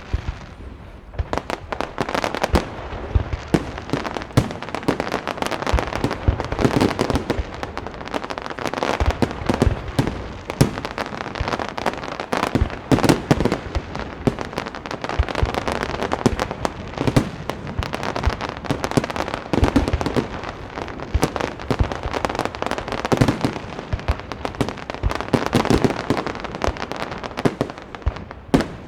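Aerial fireworks display: a dense, continuous run of overlapping bangs and crackles that thickens about a second in.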